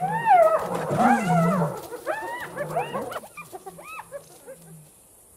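Spotted hyenas calling: a quick series of short yelping calls, each rising and falling in pitch. They are loudest in the first two seconds and trail off to fainter calls by about five seconds in.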